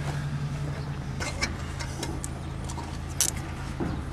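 Light clicks and rustles of hands working wiring harness and plastic cable ties in a car's engine bay, over a steady low hum.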